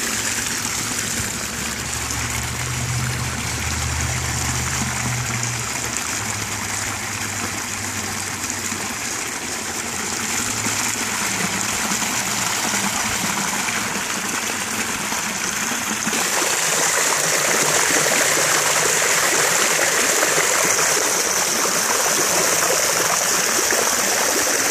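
Water pouring out of a kiddie pool over its pushed-down wall and onto the grass, a steady rushing splash. It grows a little louder and hissier about two-thirds of the way through.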